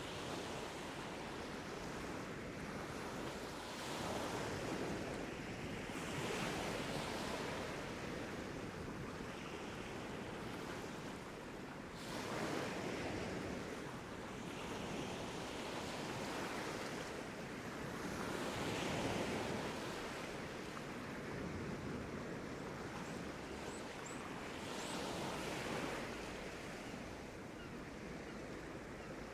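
Sea waves breaking and washing on a beach, a steady rush that swells and falls every few seconds as each wave comes in.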